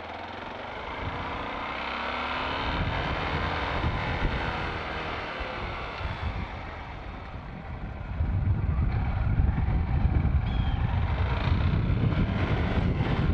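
Motorcycle engine running while the bike is ridden, its pitch rising and falling with the throttle. From about eight seconds in, wind rumbling over the microphone grows louder and covers much of the engine.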